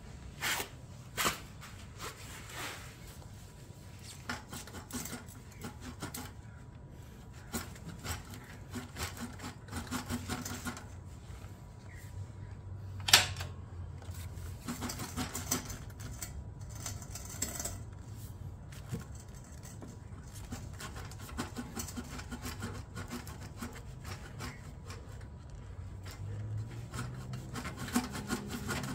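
A rag rubbing and scrubbing at dried exhaust sealant on a motorcycle exhaust link pipe joint, in irregular strokes with scattered handling clicks and one sharp knock about halfway through.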